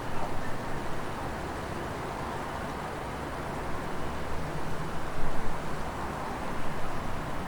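Wind blowing through trees, a continuous rushing noise that swells in gusts, most strongly about five seconds in.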